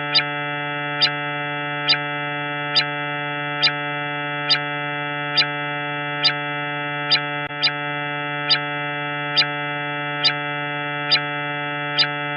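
Emergency-alert alarm tone: a steady synthesized drone of many held tones, with a sharp tick a little more than once a second.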